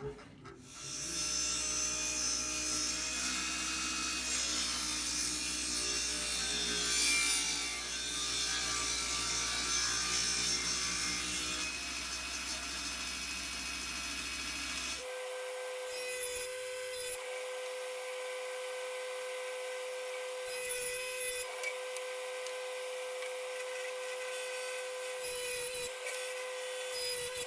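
Table saw cutting a length of timber window sill, the blade running through the wood with a low motor hum under the cutting noise. About halfway through, the sound switches abruptly to a steady, high two-note machine whine with a few short dips, as a power tool keeps working wood.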